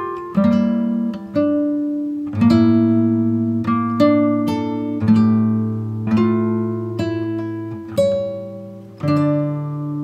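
Background music: an acoustic guitar playing plucked chords, a new one about every second, each ringing and fading.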